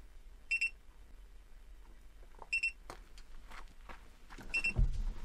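Haloview BT7 monitor's tire-pressure alarm: a high-pitched double beep three times, about every two seconds. It warns of zero pressure and a fast leak at the front driver's side tire, whose sensor has been taken off. A low thump comes near the end.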